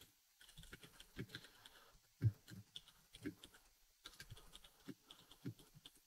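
Typing on a Das Keyboard 4 mechanical keyboard: irregular, faint keystrokes picked up by a dynamic USB microphone through NVIDIA RTX Voice noise suppression set at about two-thirds. The loud dehumidifier fan noise is stripped out, leaving the clicks with silent gaps between them.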